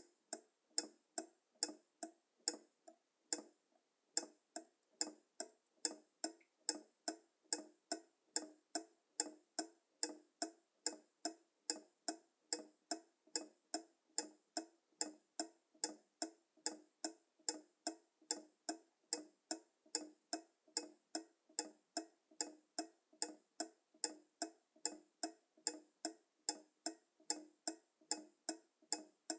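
Pendulum clock ticking, a sharp tick about two and a half times a second. It is briefly uneven, with a short gap in the first few seconds, then settles into a steady regular beat.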